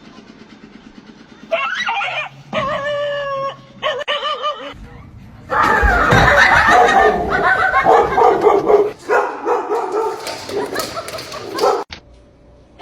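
A dog vocalizing: a few drawn-out, wavering whining cries, then a longer, louder stretch of rough barking and yelping.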